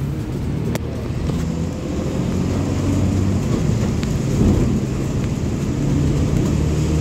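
Steady engine drone and tyre noise of a moving vehicle on a wet road, heard from inside the vehicle, with a couple of faint clicks.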